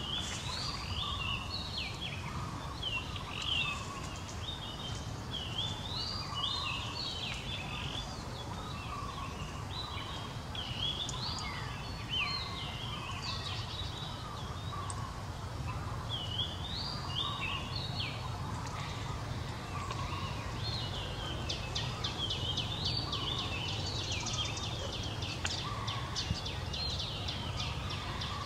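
Birds chirping and chattering in quick repeated runs of short rising notes, over a steady low background rumble.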